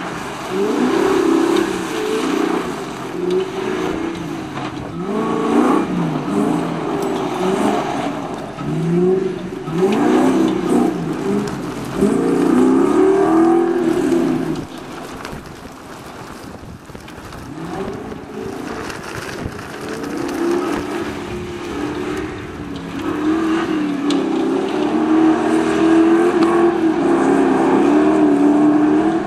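A modified off-road 4x4's engine revving hard, its pitch rising and falling again and again as the vehicle is driven fast over a dirt course. The engine is quieter for a few seconds past the middle, then loud and steady toward the end.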